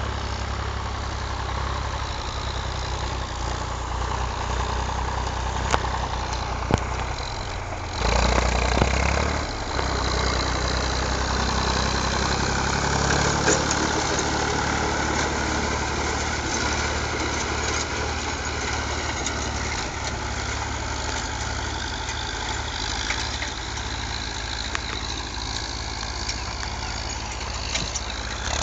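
Zetor 5011 tractor's three-cylinder diesel engine running steadily close by, mostly at idle. It gets louder for a couple of seconds about eight seconds in.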